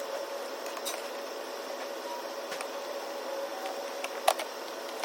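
A few light clicks and taps over a steady background hiss and faint hum, the sharpest click about four seconds in: handling noise as the strobe light bars are fitted to the windshield.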